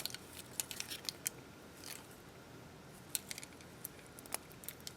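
Faint, irregular metallic clicks and clinks of a stainless steel watch bracelet and its deployment clasp being handled.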